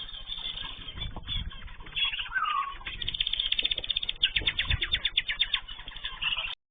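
Cage birds chirping, with a fast run of short repeated notes, about ten a second, in the second half, over low thumps. The sound cuts off just before the end.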